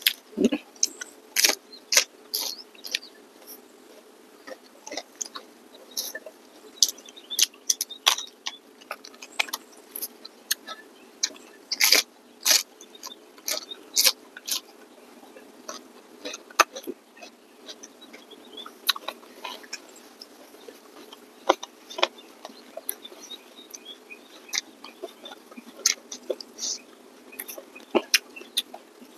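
Close-miked chewing and mouth sounds of two people eating by hand: an irregular stream of short, sharp wet clicks and smacks, some loud.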